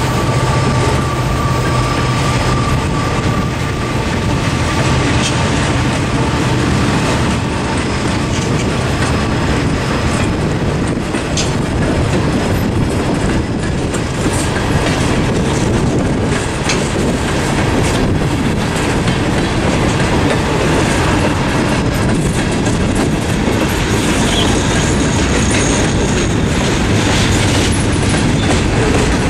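Freight train cars rolling past at a level crossing: a steady rumble of steel wheels on rail with a clickety-clack of wheels over joints. A faint steady high tone fades out in the first few seconds.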